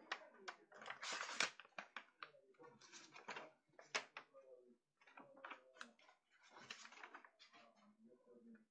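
A sheet of paper rustling and crinkling as hands fold and crease it: a run of short, irregular crackles and swishes.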